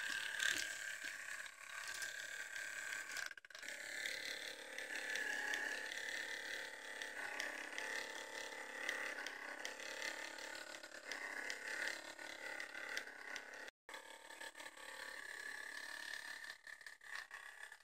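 Small electric motor and plastic gear train of an animatronic toy running, a steady whir with ratcheting gear chatter. It breaks off for an instant twice. The drivetrain is noisy, and the owner says there is still trouble somewhere in it.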